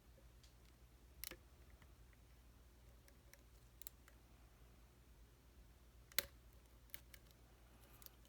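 Faint, scattered clicks of a lock pick and tension wrench working the pins of a pin-tumbler challenge lock, with one sharper click about six seconds in.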